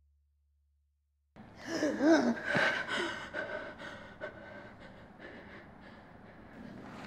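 A woman gasps sharply about a second and a half in, waking with a start, then breathes heavily in quick, fading breaths.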